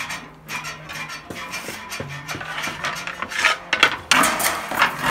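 Roofing slates being handled and cut: a run of irregular clinks, scrapes and sharp knocks of slate on slate and on the cutting machines, over a faint low steady hum.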